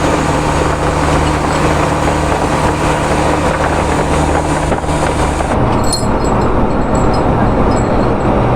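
Fishing boat's inboard engine running, a loud steady hum with a dense mechanical noise over it. About two-thirds of the way through the sound turns duller as the high hiss drops away.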